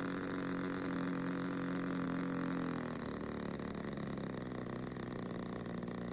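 DLE 20 single-cylinder two-stroke gas engine of a model airplane running steadily just after starting. About three seconds in its pitch drops and it settles into a lower, less even run.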